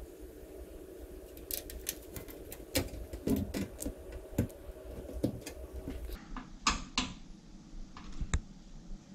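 Irregular clicks and light knocks of a mini-ITX motherboard being handled and fitted into a small metal PC case, thickest in the middle with a few more near the end.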